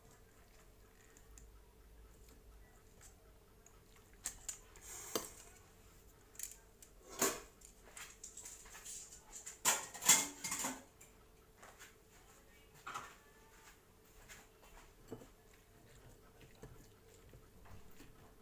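Kitchenware being handled: a run of clinks and clatters starting about a quarter of the way in, loudest just past the middle, then a few scattered clicks.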